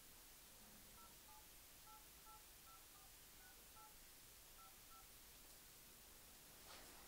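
Faint touch-tone keypad beeps from a mobile phone as a number is dialled: about ten short two-note tones in an uneven rhythm over some four seconds.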